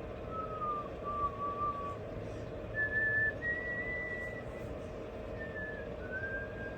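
A series of soft whistled notes: two lower ones, then higher ones, ending on a long held note, over a steady hum.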